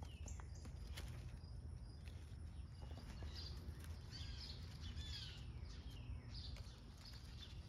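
Faint birdsong: a run of short chirps and downward-sliding calls from about three to six seconds in, over a steady low outdoor rumble, with a single light click about a second in.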